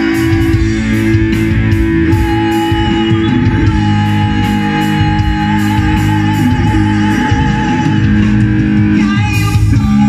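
Live rock band playing through a stage PA: distorted electric guitars over a drum kit, with cymbal strokes keeping the beat.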